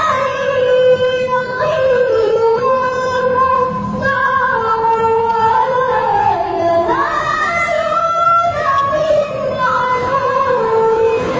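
A woman's voice singing a slow melody, holding long notes and bending between them in ornamented glides.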